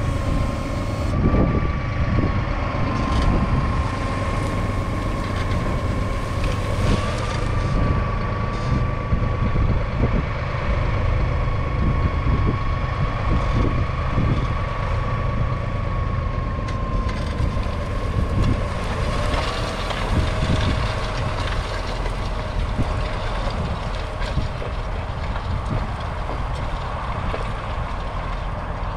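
Massey Ferguson 4707's three-cylinder diesel engine running steadily under load while pulling a two-furrow reversible plough, with a thin steady high whine over the low rumble. Scattered knocks and clatter come from the plough working through the soil.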